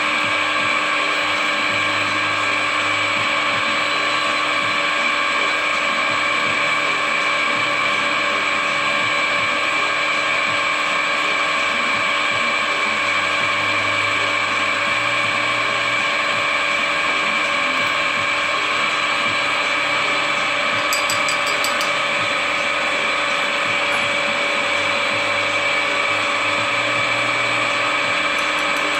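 Geared-head drill press running steadily, its gear train giving a constant whine, while it drills holes in an aluminium angle piece.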